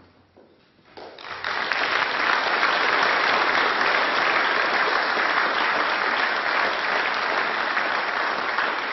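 A roomful of people applauding: the clapping starts suddenly about a second in, quickly builds and then holds steady.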